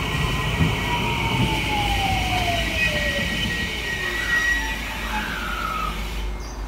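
JR West 223 series electric train moving slowly along the platform, its motor and inverter whine gliding steadily down in pitch over about four seconds over a steady high hum; a short rising tone sounds near the end.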